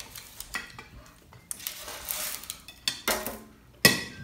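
Metal spatula scraping and clinking against a metal oven tray lined with baking paper as a pizza slice is worked loose and lifted. There is a stretch of scraping around the middle and a few knocks, the loudest a sharp ringing clink near the end.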